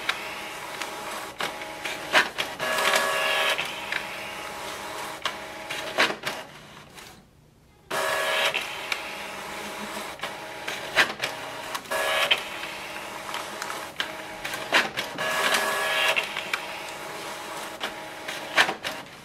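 Canon MAXIFY GX3020 inkjet printer printing its automatic printhead alignment pattern: the print carriage whirs in repeated passes, with sharp clicks between them. It goes quiet for about a second around seven seconds in.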